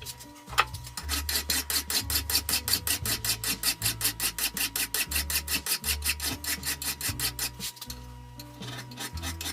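A hand file is drawn back and forth across a metal plate in quick, even strokes: draw filing, rasping steadily, with a short break near the end. Background music plays underneath.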